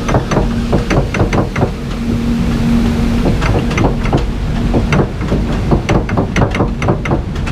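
Mechanical clatter of a water-flume ride: a steady low rumble with rapid, uneven clacking, a few knocks a second, and a short steady hum about two seconds in.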